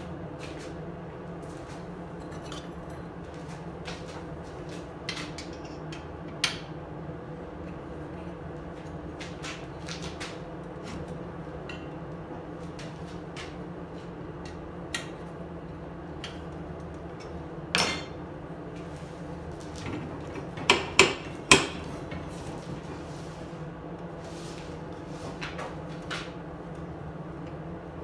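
Scattered metallic clicks and clanks from the metal parts and geared locking mechanism of a 2x50 belt grinder being handled, over a steady hum. The loudest knocks come in a quick cluster about 21 seconds in.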